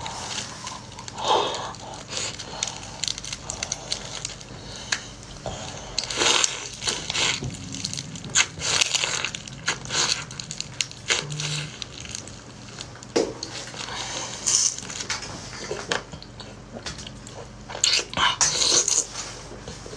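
Close-miked slurping, sucking and chewing as razor clams are sucked out of their shells and eaten. The sounds come in irregular wet bursts.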